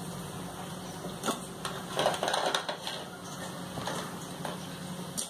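Crisp deep-fried aattukaal cake pieces clattering from a wire frying strainer onto a plate, a second of dense clatter about two seconds in, with a few single clinks of metal before and after.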